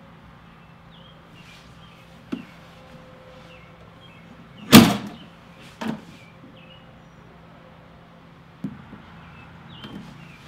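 Metal clanks from a Lesco drop spreader's shutoff lever and gate plate being worked by hand: a light click, then a loud clank about five seconds in, another a second later, and a lighter knock near the end. The shutoff sticks and does not close all the way.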